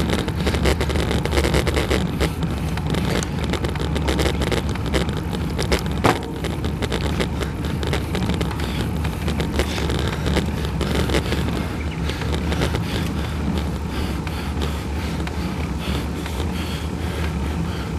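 Wind rushing over the microphone of a camera riding on a bicycle, with a steady low road rumble and constant small rattling knocks from the mount, one sharper knock about six seconds in.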